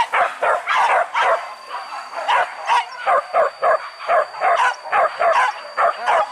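Pack of hunting dogs barking and yelping on a wild boar hunt, in quick overlapping barks, several a second.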